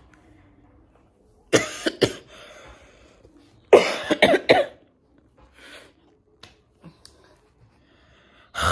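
A sick woman coughing, whose illness comes with fever and cough. A short bout comes about a second and a half in, then a longer fit of several coughs around four seconds in.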